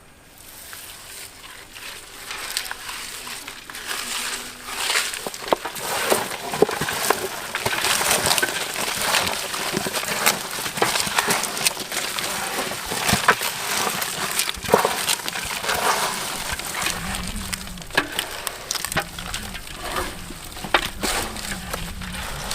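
Wet squishing and crackling with many small clicks and knocks: raw chicken being mixed by hand with oil and spice marinade in a vessel.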